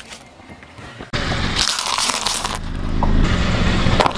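Car tyre rolling slowly over gritty asphalt and crushing things placed under it, with dense crackling and crunching over a low engine hum. The sound jumps abruptly louder about a second in.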